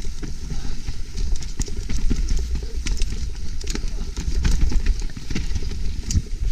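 Mountain bike descending a rough trail past an action camera: wind buffets the microphone with a steady low rumble, while the bike's chain and frame rattle over roots in many sharp clicks and knocks.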